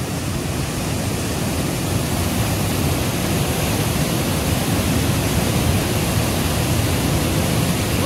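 Small waterfall pouring into a rock pool: a steady, unbroken rush of water.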